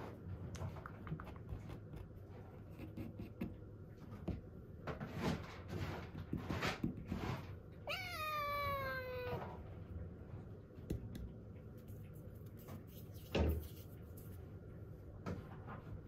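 Kitten meowing once, a drawn-out call of about a second and a half that falls in pitch, among soft clicks and rustles. A short thump sounds near the end.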